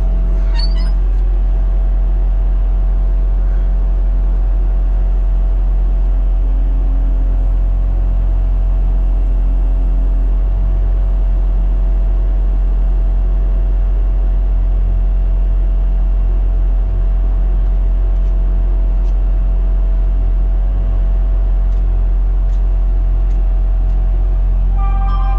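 Skid-steer loader's diesel engine idling steadily, heard from inside the closed operator cab.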